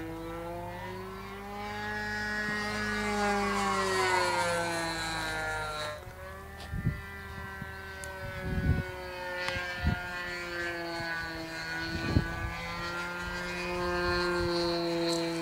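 OS MAX 46 AX two-stroke glow engine of an RC aerobatic model plane running hard overhead, a buzzing drone whose pitch rises and then falls early on before holding fairly steady. A few short low thumps come in the middle.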